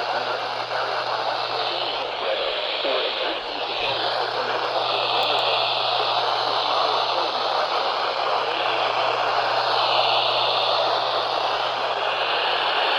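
Steady hiss of static from a weather radio receiver on a weak, barely receivable NOAA Weather Radio signal, with a low hum underneath.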